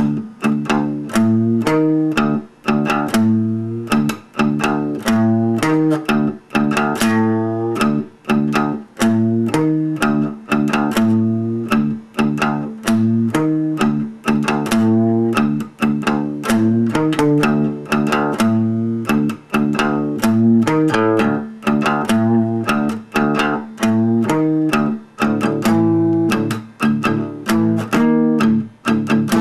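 Instrumental music: a fast, evenly picked run of notes that rises and falls in a repeating pattern, over a steady low note that is held throughout.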